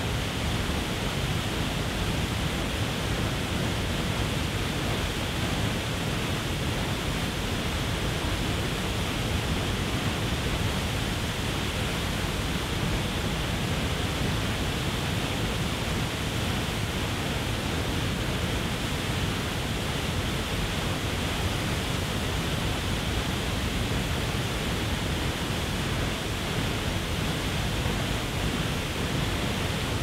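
Waterfall plunging into a pool: a steady, unbroken rush of falling water and churning whitewater.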